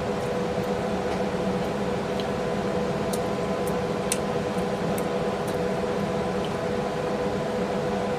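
Steady electrical or fan-like hum at an even level, with a few faint soft clicks of a man chewing a mouthful of food.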